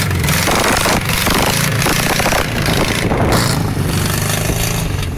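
Air-cooled flat-four engine of a rebuilt VW 1200 Beetle buggy running hard as the buggy pulls away, with a loud rushing noise over the first couple of seconds.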